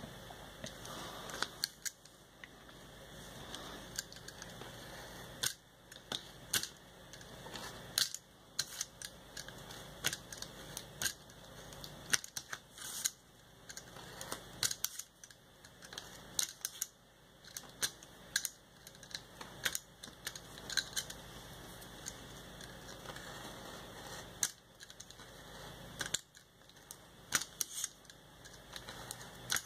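Craft knife blade cutting paper: irregular sharp clicks, often in quick clusters, as the blade is pressed in and drawn along the cut outlines.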